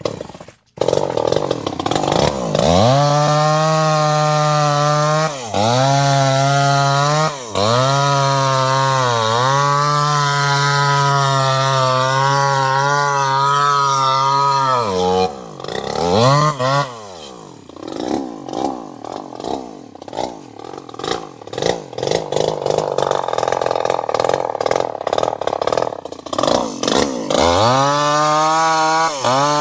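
Chainsaw engine running at high revs with brief dips in pitch. About halfway through it drops to a rough, uneven low speed, then revs up high again near the end.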